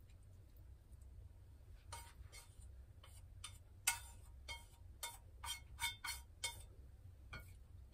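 Chopsticks clicking and tapping against a metal frying pan as scrambled egg is scraped out of it: a run of sharp clicks, some briefly ringing, starting about two seconds in, with the loudest about four seconds in.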